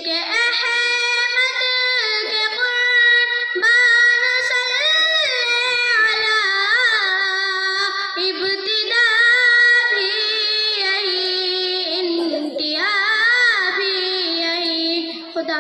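A young girl sings an Urdu naat solo into a microphone, holding long notes with wavering, ornamented turns. The singing stops near the end, closing the piece.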